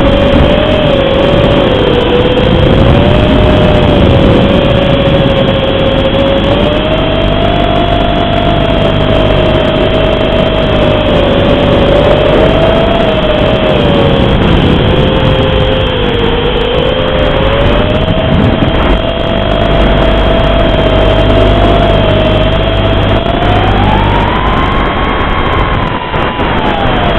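Whine of an FPV racing quadcopter's four Cobra 2204 2300kv brushless motors spinning Dalprop 5040 three-blade props, heard from on board over a steady hiss. The pitch rises and falls with the throttle and climbs to its highest near the end before dropping again.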